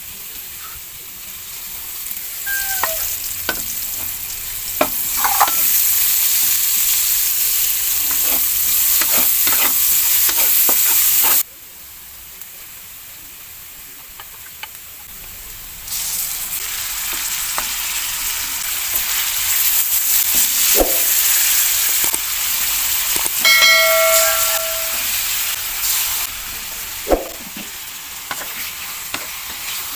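Food sizzling and frying in a hot pan while it is stirred, with scattered clicks and scrapes of a utensil against the pan. The sizzle drops away abruptly about a third of the way through and comes back a few seconds later, and a short pitched squeak sounds about three quarters of the way through.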